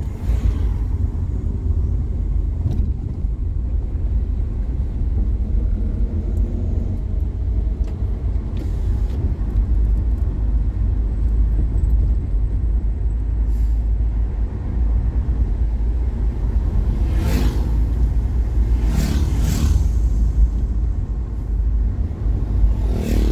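Steady low rumble of a car's engine and tyres on the road, heard from inside the moving car's cabin. A few brief louder noises come near the end.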